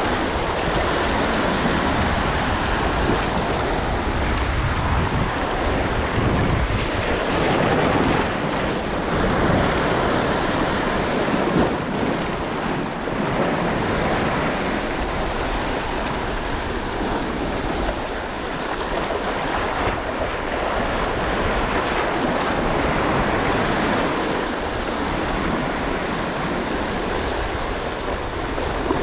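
Small waves washing in and breaking over a rocky shoreline, a continuous surging wash of surf. Wind rumbles on the microphone underneath.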